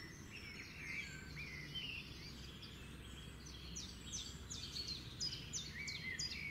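Birds calling in the trees: scattered whistled, gliding notes, then from about two-thirds in a quick run of sharp notes that sweep downward, over a low steady background hum.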